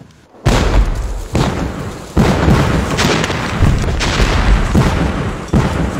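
A series of explosions: homemade black-powder charges blasting frozen ground. The first comes suddenly about half a second in, followed by several more about a second apart, with rumbling between them.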